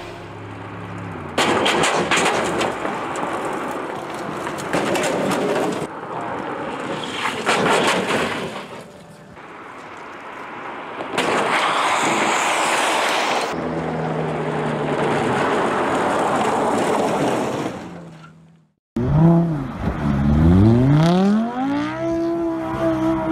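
Supercars driving fast on rough road and dirt: a loud rush of tyre and road noise with rattling clicks, in several short clips. Near the end, a Lamborghini Huracán's V10 revs in a falling and rising sweep, then holds high revs as the car spins donuts in dust.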